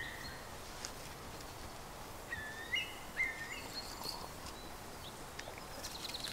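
Forest ambience with birds calling: a few short whistled bird phrases about two to three seconds in, over a faint steady background. A quick run of faint clicks comes near the end.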